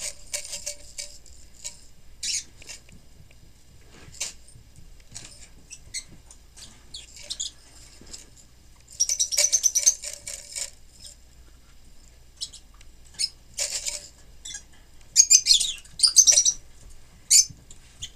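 A jar holding a few sunflower seeds, shaken in short bursts of rattling with pauses between, the longest about a second and a half; the rattle is used to grab the puppies' attention.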